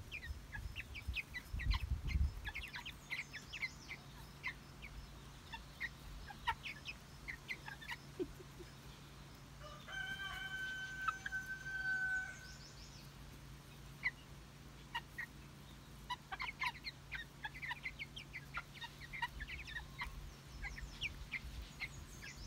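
A flock of month-old Faverolles chicks peeping and cheeping as they forage, many short high chirps scattered throughout. About ten seconds in, a single long even-pitched call is held for about two and a half seconds. A brief low rumble comes about two seconds in.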